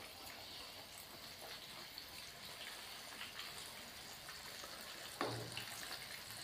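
Breaded chicken leg pieces deep-frying in hot oil in an aluminium karahi on high heat, early in the frying: a soft, steady bubbling hiss with fine crackles. About five seconds in, a short knock as a metal spoon goes into the pan.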